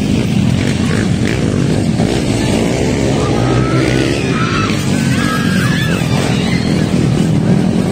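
Motocross dirt bike engines running on a dirt track, a loud, steady drone.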